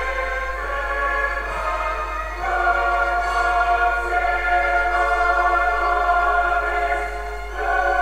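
Background music with slow, sustained chords that change about two and a half seconds in and again near the end.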